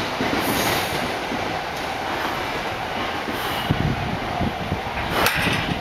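A train running past on the rails: a steady rumble of wheel and track noise, with a few sharper clacks about five seconds in.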